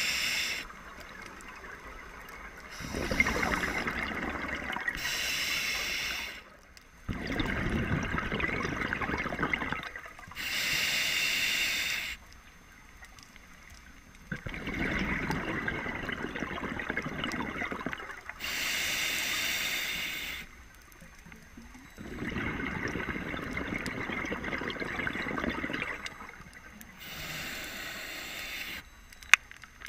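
Scuba diver breathing through a regulator: short hissing inhales alternate with longer bursts of exhaled bubbles, about four slow breath cycles. One sharp click comes near the end.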